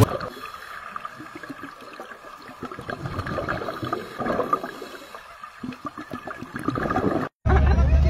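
Underwater sound of scuba divers: muffled, irregular bubbling and gurgling of exhaled air from their regulators. Near the end it cuts to the surface, where a boat engine hums steadily and low.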